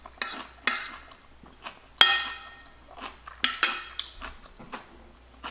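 Metal spoon clinking and scraping against a ceramic plate while scooping up food: a series of sharp clinks, the loudest about two seconds in, ringing briefly.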